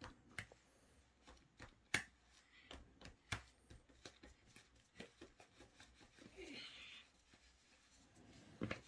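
Plastic janggi pieces clicking faintly against a wooden board as a hand handles them: scattered light clicks, two a little sharper about two and three and a half seconds in, and a brief soft rustle past the middle.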